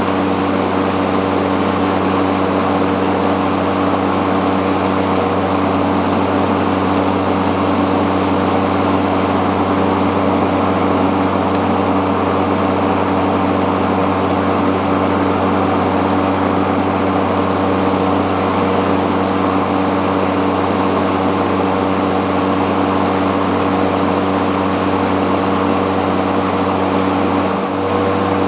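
A cordless AEG 18V garden tool running steadily at constant speed, an unchanging electric-motor hum over a rushing noise, with a brief dip near the end.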